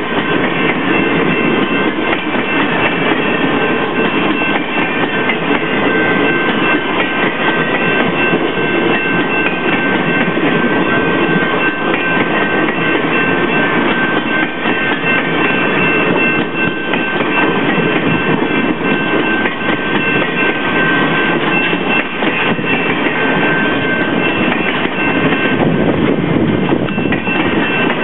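Passenger cars of a long circus train rolling past close by: a steady rumble of steel wheels on rail with occasional clacks over the rail joints. A thin, steady high tone runs through it.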